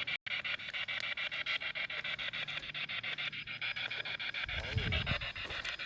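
Spirit-box radio sweep: hissing static chopped into rapid, even pulses, about ten a second, with a brief low rumble near the end.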